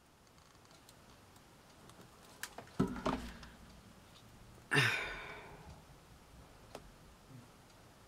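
Small clicks and taps of hand work with a wooden skewer and a small metal necklace clasp, with a few clicks about three seconds in and one louder sound near the middle that trails off over about half a second.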